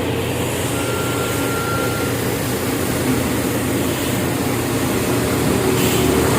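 Heavy diesel engines of a concrete mixer truck and concrete pump running steadily, a continuous low rumble.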